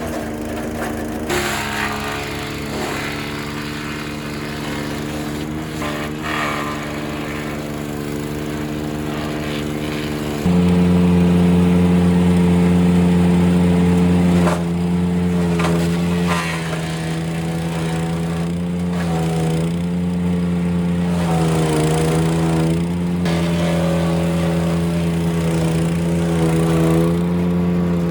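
Wood chipper running steadily while branches are fed through it, with short cracking and splintering sounds as the wood is chipped. It gets louder about a third of the way in, and the engine note dips briefly under load about two-thirds through.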